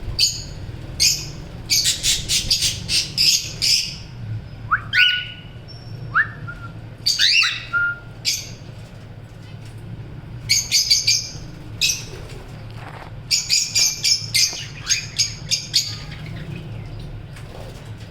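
Small pet parrots chirping in rapid, shrill bursts of repeated notes, with a few quick rising whistled calls in the middle, over a low steady hum.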